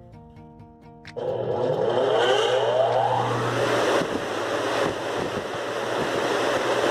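A motor spinning up a centrifugal fan impeller about a second in, its pitch rising over a couple of seconds and then settling into a steady rush of air.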